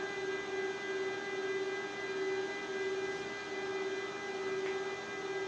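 A steady, unbroken hum on one held tone.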